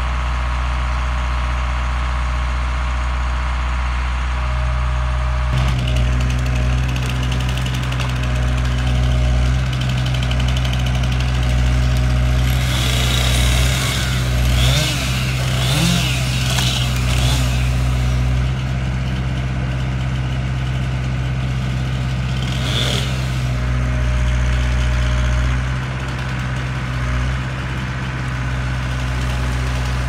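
Engine of a tree-cutting crane with a grapple-saw head running steadily, picking up about five seconds in as the boom works. From about 12 to 18 seconds in there is a harsh sawing noise as the head's saw cuts through the trunk, with a shorter burst near 23 seconds.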